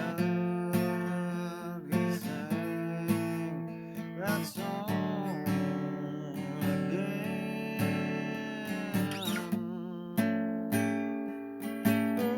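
Acoustic guitar music: strummed chords with a few sliding notes.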